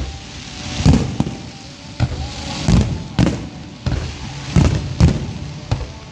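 Aerial fireworks shells bursting in a quick series of deep booming bangs, about one or two a second, each trailing off briefly.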